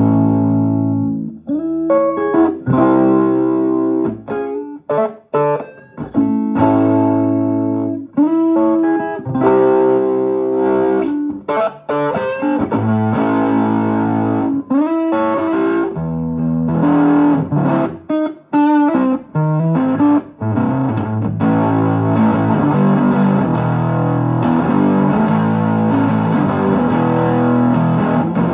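Electric guitar played through a Vermona Regent 300 K, with an effects unit and light distortion: separate plucked chords and notes with short gaps at first, giving way about two-thirds of the way in to denser, continuous playing.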